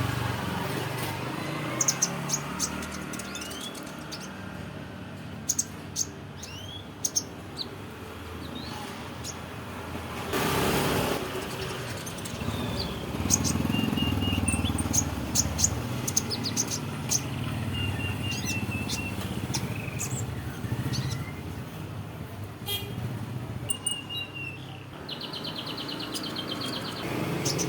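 Young pied canary practising its song: scattered chirps and short slurred notes with a few brief trills, including a fast trill near the end. A steady low rumble sits underneath.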